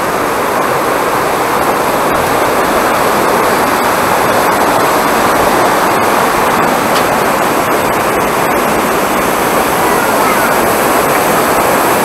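Waterfall and mountain stream rushing, a steady even noise without pauses.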